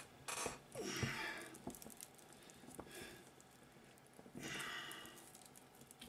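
Hand cable cutters gnawing through heavy 2-gauge copper battery cable, with faint scattered clicks as strands give. Two long, effortful breaths out, one near the start and one about four and a half seconds in, from squeezing the cutters.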